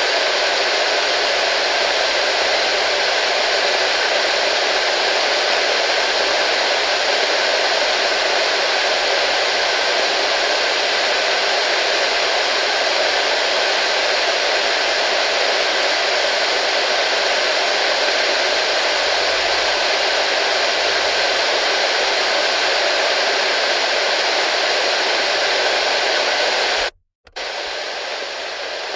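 Clock radio giving out a steady, loud static hiss. It cuts out for an instant about 27 seconds in and comes back quieter.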